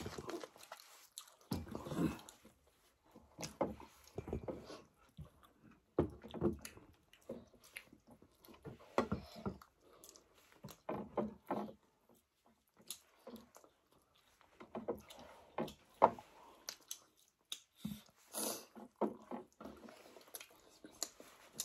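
Several people chewing and eating chapati with buffalo curry at a table: irregular, wet chewing and mouth sounds with scattered small clicks, the sharpest one about sixteen seconds in.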